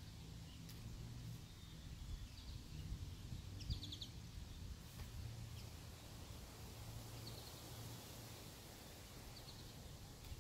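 Faint outdoor ambience: a low, wavering hum with a few short bird chirps scattered through it, and a soft knock a little under four seconds in.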